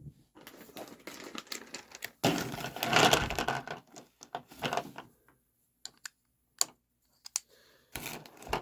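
Small clicks and rattling as nylon balls are handled and loaded into a CO2 revolver, with a busier stretch of rattling about two to four seconds in and a few separate clicks after.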